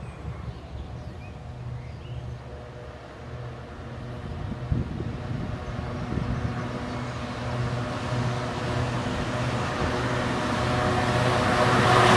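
Class 66 diesel locomotive approaching with its EMD two-stroke diesel engine running steadily. It grows gradually louder as it nears, and a rushing noise of the passing train builds up strongly near the end.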